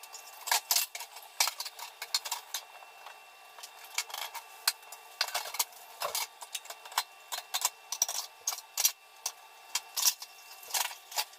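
Dishes and cooking utensils being washed by hand in a stainless-steel sink: irregular clinks, knocks and rubbing scrapes, several a second at times.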